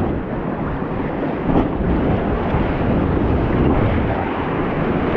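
Rushing whitewater of a high-water river rapid around a raft, mixed with wind buffeting the microphone, with a brief louder surge about a second and a half in.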